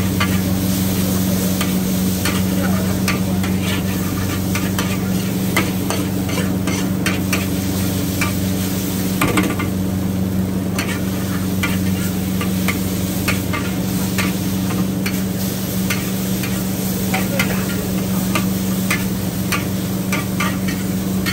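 Metal spatula scraping and clanking against a steel wok in irregular strokes as noodles are stir-fried, with a continuous sizzle from the hot pan over a steady low hum.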